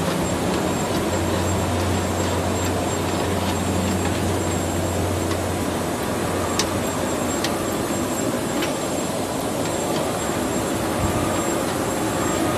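A 24-24-8 rotary washing, filling and capping machine for bottled water running steadily: a constant mechanical whir with a low hum that fades out about six seconds in, and scattered light clicks.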